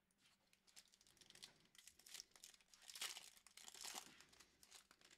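Foil wrapper of a Prizm basketball trading-card pack being torn open and crinkled by hand. The quiet crackling builds from about a second in and is loudest around the middle.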